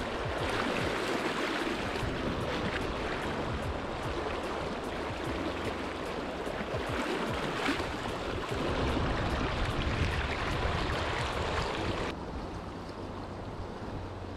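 River current rushing over a riffle, a steady watery noise. About two seconds before the end it turns softer and duller.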